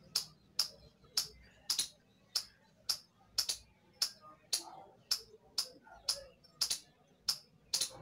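Indian palm squirrel calling: a steady run of short, sharp, high-pitched chirps, about two a second.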